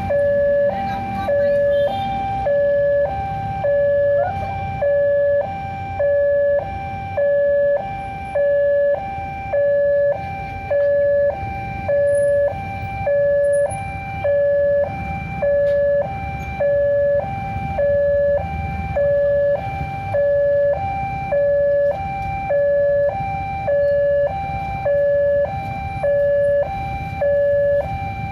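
Railway level-crossing warning alarm sounding continuously: an electronic two-tone signal alternating between a lower and a higher tone, a little faster than once a second. Under it there is a low rumble of motorbike traffic at the crossing.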